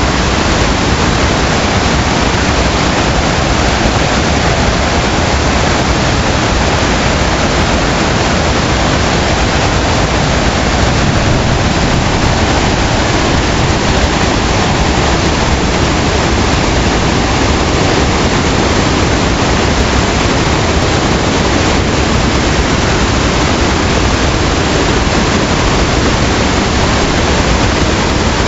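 Floodwater rushing, a loud steady noise with no break or change.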